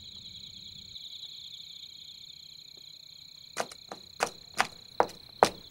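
Steady high chirring of crickets in a night forest. About two-thirds in, a run of sharp clicks or knocks starts, about two or three a second, louder than the chirring.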